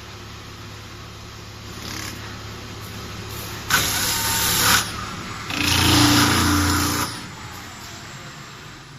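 CNC metal spinning machine running with a steady low hum, with two loud rushing noises about four and six seconds in, each lasting a second or more.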